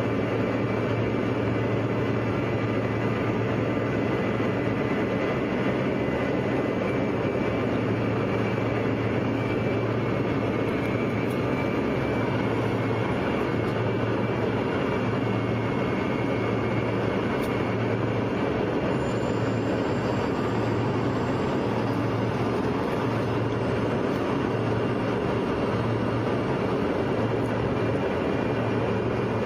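Steady roar of an airliner cabin in flight, engine and airflow noise with a low hum underneath.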